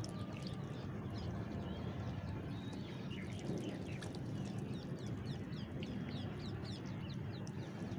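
Water poured from a plastic mug onto the soil of a potted jade plant, a steady trickle. From about three seconds in, birds chirp in a quick run of short falling notes.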